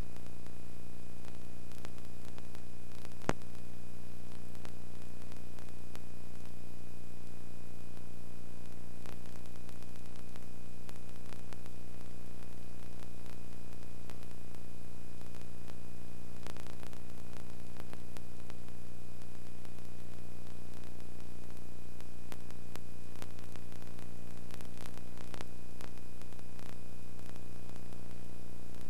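Steady electrical hum with its overtones, over constant hiss, with scattered faint clicks and one sharper click about three seconds in. This is the noise of a soundless film transfer, with no sound from the game itself.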